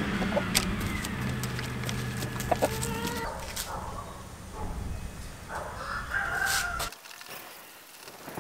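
Chickens calling: one long, held call from about one to three seconds in, then shorter calls between about five and seven seconds.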